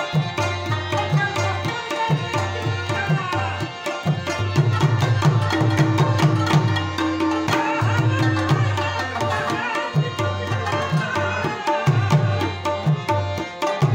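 Live tabla and Afghan rubab playing folk music together: a steady tabla rhythm with deep, downward-sliding bass-drum strokes under fast plucked rubab melody. A single long held note sounds over it for a few seconds about halfway through.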